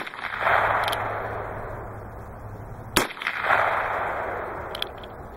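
Two shots from a .22 WMR single-action revolver, about three seconds apart, the first right at the start. Each sharp crack is followed about half a second later by an echo that rolls back and dies away over a second or so.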